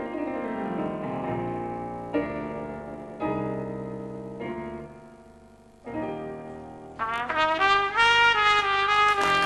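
Piano playing slow chords, each struck and left to ring and fade. About seven seconds in, a trumpet comes in over it with a phrase of held notes.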